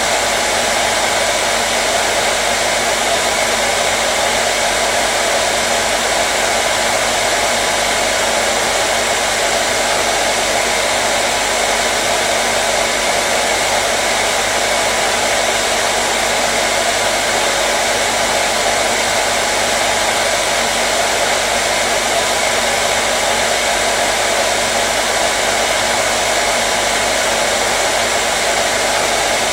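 Hair dryer running continuously at a steady level: an even, unbroken rush of air with a faint steady motor hum underneath.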